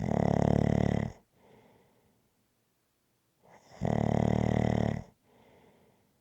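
A person snoring in a steady rhythm: two loud snores, each about a second long and about three and a half seconds apart, each followed by a quieter breath.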